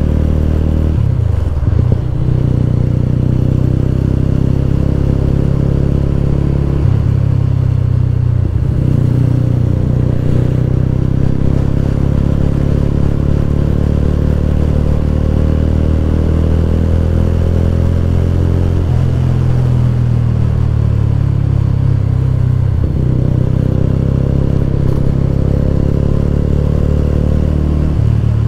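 Mahindra Mojo's single-cylinder 295 cc engine running under way, its note climbing slowly and dipping briefly about five times as the bike is ridden.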